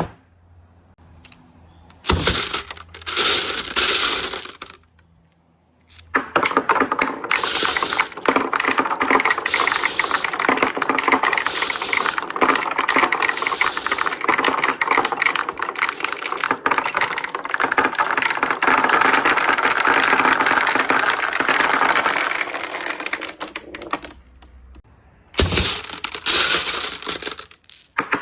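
Marbles rolling and clattering through a marble run. A sharp clack and short rattle come about two seconds in. After a brief pause there is a long stretch of continuous rolling with rapid clicks, and a brief lull near the end is followed by another clack and rattle.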